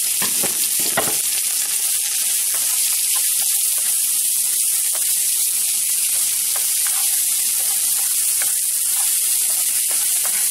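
Chopped onion, a jalapeño and dried chiles de árbol sizzling in hot oil in a nonstick frying pan: a steady, high hiss. A spatula stirs and scrapes through the onion, adding a few light scrapes.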